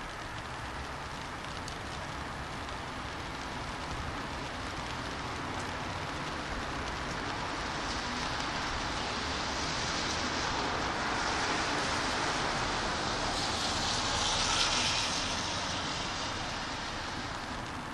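Steady rain falling on a city street, with a car driving past on the wet road: its tyre hiss swells from about eight seconds in, is loudest near fifteen seconds, then fades.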